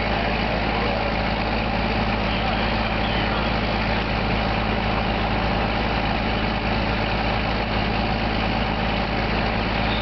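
Fire truck engine idling, a steady low hum that does not change.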